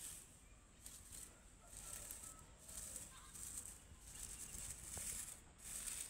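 Dry grass mulch rustling faintly in repeated short bursts as fingers push the stalks aside.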